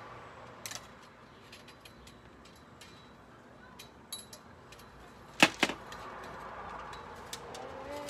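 Two sharp knocks in quick succession about five and a half seconds in, with scattered small clicks and taps, from a metal bird-feeder pole being handled and fastened at a wooden deck railing.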